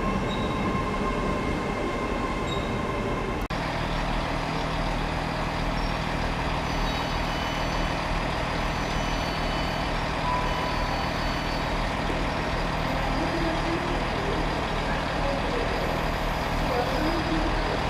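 A freight train's wagons rumbling away, then after an abrupt change about three and a half seconds in, the steady engine hum of a Freightliner Class 66 diesel locomotive as it approaches slowly.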